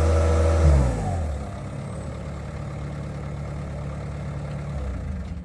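Caterpillar 247B compact track loader's diesel engine brought down from high revs: its pitch falls about a second in, and it settles into a steady, quieter idle.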